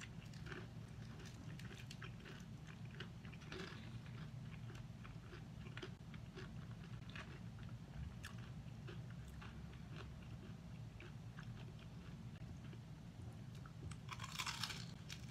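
Close-up chewing and crunching of crispy fried chicken: many small crackles throughout, with a louder burst of crunching about fourteen seconds in as a piece is bitten.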